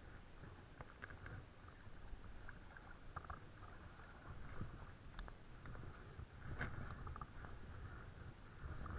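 Faint, irregular crunching of footsteps on a gravel-and-shell riverbank, over a low rumble of camera handling.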